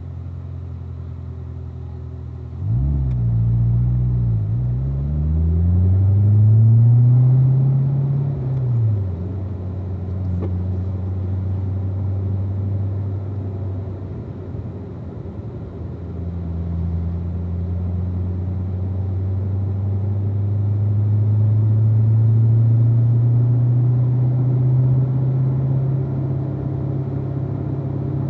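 A 2016 Corvette Z06's supercharged V8 engine runs at low revs. About three seconds in, the revs rise and dip quickly, then climb until about eight seconds and fall back to a steady low drone. Over the second half the revs slowly rise again.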